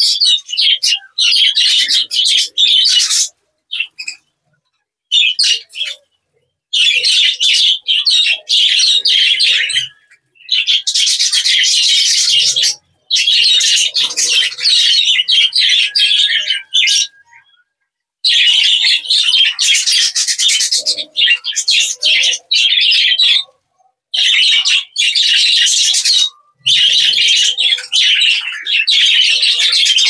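A flock of budgerigars chattering and chirping, in stretches of a few seconds broken by short silent gaps.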